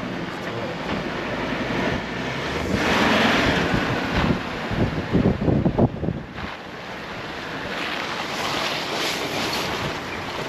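Strong wind buffeting the microphone in gusts, heaviest about three to six seconds in, over the low rumble of a vehicle driving on a snowy road.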